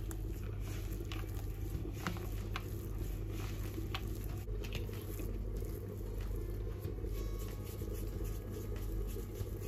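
Hands kneading and shaping a soft, oily poğaça dough: quiet squishing with scattered light taps, over a steady low hum.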